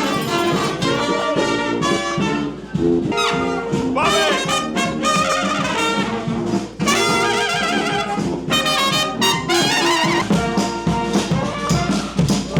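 Upbeat jazzy background music led by brass, trumpets and trombones playing a melody over a steady beat.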